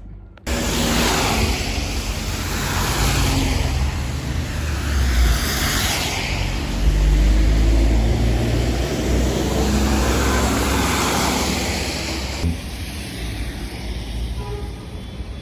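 Road vehicle noise: a loud, steady rumble of traffic or a moving vehicle. It starts abruptly about half a second in and eases a little near the end.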